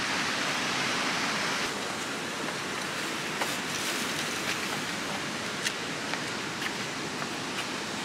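Steady, even roar of heavy typhoon-swell surf breaking on the beach, with a few faint ticks.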